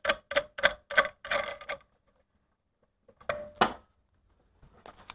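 Metal PL-259 antenna plug being unscrewed from the radio's rear socket: sharp metallic clicks about three a second for the first two seconds, then a single louder ringing clink about three and a half seconds in as the freed plug is set down, with a few faint ticks near the end.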